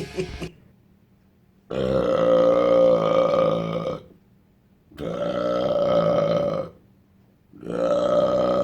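A man belching three times. Each belch is long and drawn out, about two seconds, with short silent gaps between them.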